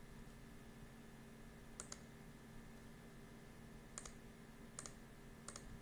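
Computer mouse clicking four times, faint and sharp, against quiet room tone with a low steady hum.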